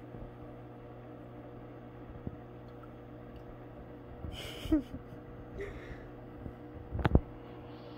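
Steady low hum of aquarium equipment, with a couple of brief soft handling noises and a sharp knock about seven seconds in.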